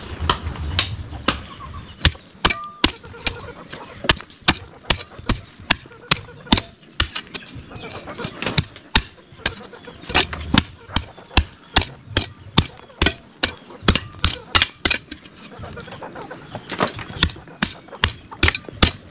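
Hand hoe chopping into damp clay soil, repeated strokes about two a second with a short pause about three-quarters of the way through. A steady high-pitched insect drone runs underneath.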